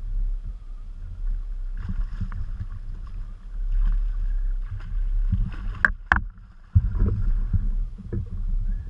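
Water sloshing and splashing around a kayak as a hooked tarpon thrashes beside the hull, over a steady low rumble. Two sharp clicks come close together about six seconds in.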